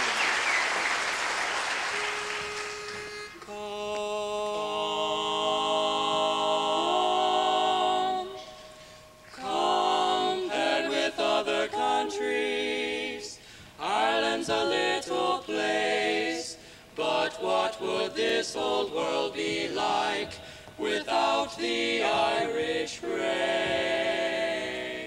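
Applause dies away over the first few seconds, then a male a cappella barbershop quartet sings in four-part harmony, opening on a long held chord and then going into the song's phrases about nine seconds in.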